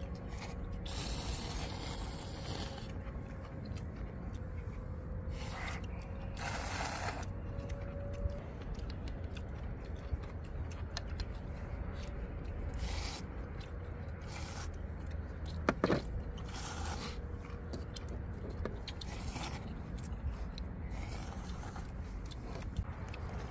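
People slurping ramen noodles and chewing, short slurps coming every few seconds over a steady low rumble, with a sharp click about sixteen seconds in.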